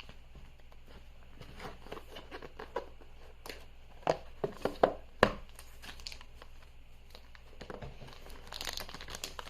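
Faint rustling and scattered light clicks of a tablet's cardboard retail box and packaging being handled and slid open by hand, with a few sharper clicks around the middle.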